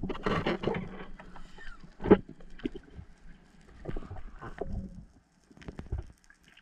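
Muffled, irregular knocks and clicks heard through a camera underwater, with a cluster in the first second and one sharp knock about two seconds in.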